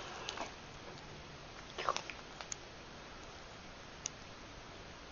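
A kitten playing with a toy: a few faint sharp clicks and scuffles, with a short cluster of them about two seconds in.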